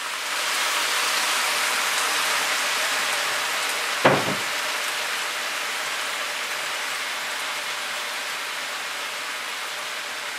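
Water poured into a hot skillet of bacon grease and cabbage, sizzling with a steady hiss that slowly dies down. A single short knock about four seconds in.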